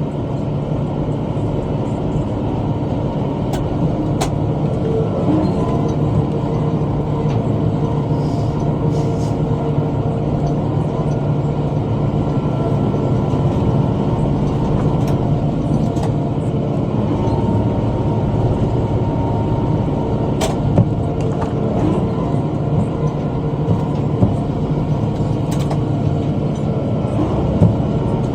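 Tractor engine running steadily while mowing with a rotary cutter (bush hog), with a few sharp knocks scattered through.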